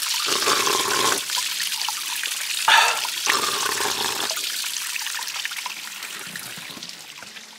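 Mountain spring water trickling down a mossy rock face and splashing onto a man's mouth and face as he drinks from the falling stream, with two heavier spells of splashing. The water sound fades over the last couple of seconds.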